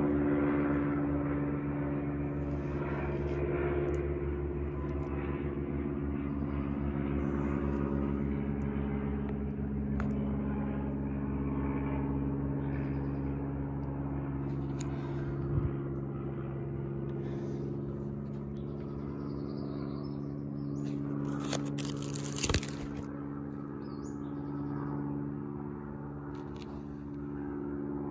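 A steady low mechanical hum over a rumble, with a few sharp clicks and a short rustle about three quarters of the way through.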